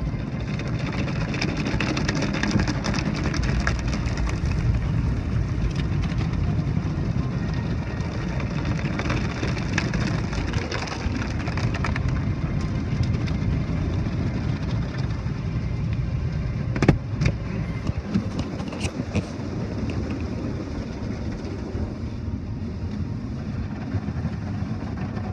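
Automatic tunnel car wash heard from inside the car's cabin: water jets spraying and spinning cloth brushes scrubbing over the windshield and body, a steady rushing wash noise. A few sharp knocks come about two-thirds of the way through.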